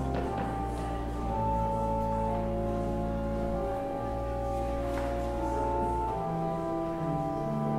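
Church organ playing slow, sustained chords over a deep held bass note, with the harmony changing about a second in and again about six seconds in.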